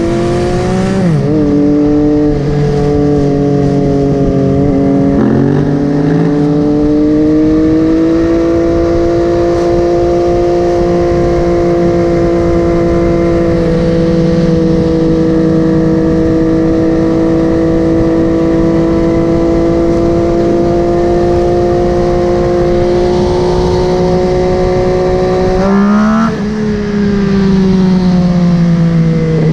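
MV Agusta Dragster 800's three-cylinder engine under way through a QD Power Gun exhaust. Its pitch drops twice in the first few seconds with gear changes, then holds steady and rises slowly for about twenty seconds before a quick change in pitch near the end.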